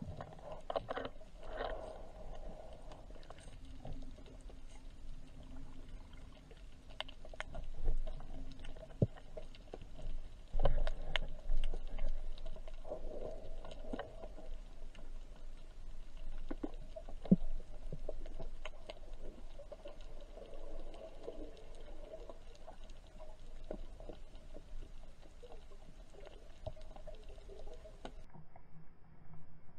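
Muffled underwater sound through an action camera's waterproof housing while swimming with a speargun: a low steady rumble of water, with many scattered small clicks and a few louder knocks.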